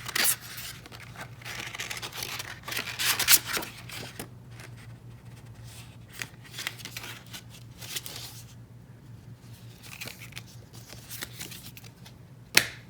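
Packaging being handled while a phone box is unpacked: irregular rustling and crinkling of paper and plastic, heaviest about three seconds in, with one sharp loud crackle near the end.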